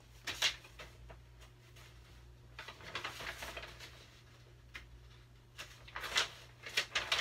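Paper rustling and crackling from the pages of a large paperback picture book being handled and leafed through, in several short bursts.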